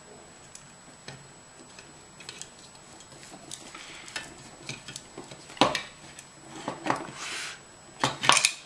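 Small metallic clicks and clinks from a folding hex-key set working screws out of transistors clamped to finned aluminium heat sinks, sparse at first and more frequent after a few seconds. A short scrape comes about seven seconds in, and a few louder clacks near the end.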